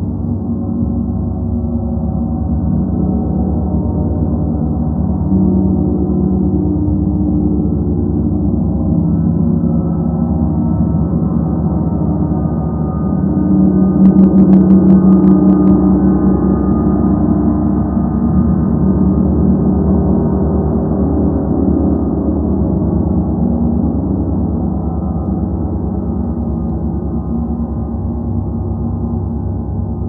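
Gongs ringing in a continuous, layered drone of many overlapping low tones, swelling to its loudest about halfway through.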